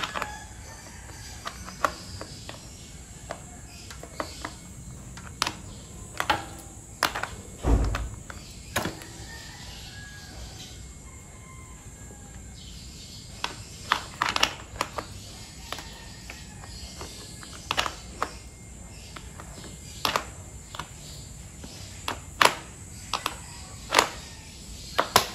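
Cycling-shoe cleat snapping into and twisting out of a clipless pedal over and over: irregular sharp clicks and knocks, with one heavier thump about eight seconds in.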